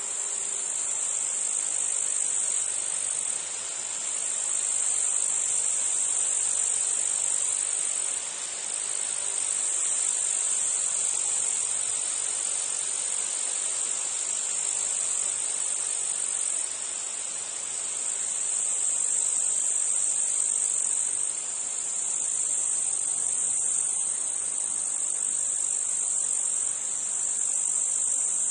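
Meadow insect chorus: a continuous high, shrill trilling that swells and eases every few seconds.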